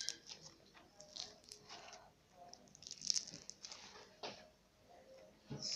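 Grainy, bead-filled slime ball being squeezed and kneaded by hand, giving faint crackles and squishes in short bursts about every second.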